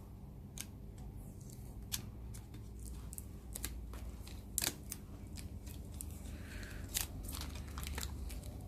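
Protective adhesive film being peeled off an iPhone A10/A11 3D reballing stencil: irregular small crackles and clicks, with a steady low hum underneath. The film is sticking and not coming away cleanly.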